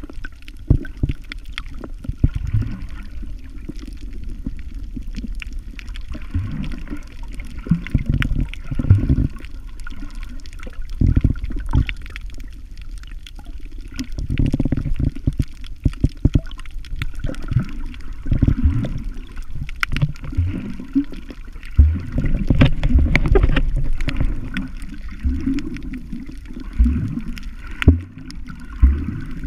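Muffled water sound picked up by a camera held underwater while snorkeling: low, uneven sloshing and surging of water with scattered small clicks and knocks.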